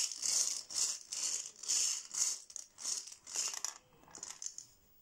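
Plastic bingo balls rattling and tumbling inside a small hand-cranked plastic bingo cage as it is turned. The rattle comes in rhythmic surges, about two to three a second, and dies away about four and a half seconds in.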